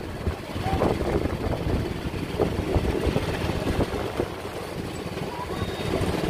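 Low, steady rumble of road traffic with motorbike engines, with faint scattered sounds above it.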